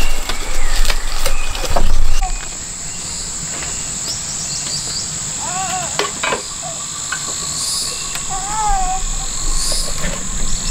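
Insects droning steadily at a high pitch. There are loud knocks and rumble in the first two seconds, and a few short arching calls in the middle and later.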